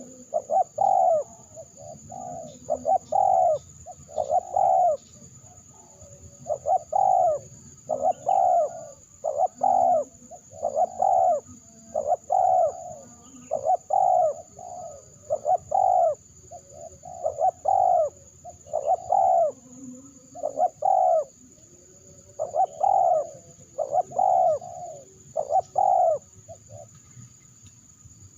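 Spotted dove (terkukur), kept as a decoy bird, cooing over and over in quick repeated phrases, with a brief pause near the end.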